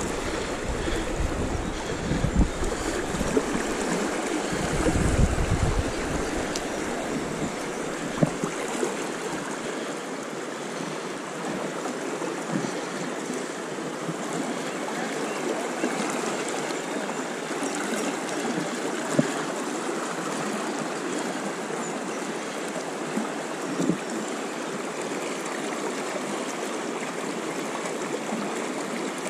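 Steady rush of the river's current riffling over a rocky bed around a wading angler, with a low rumble in the first several seconds and a few faint ticks and knocks.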